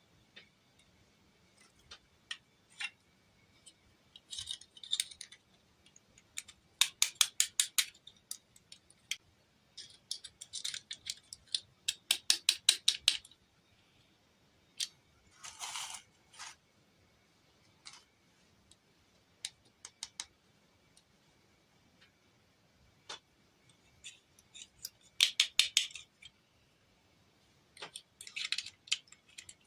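Small plastic toy pieces being handled and rattled: scattered clicks and taps, with a few short runs of rapid clicking and brief scratchy rustles.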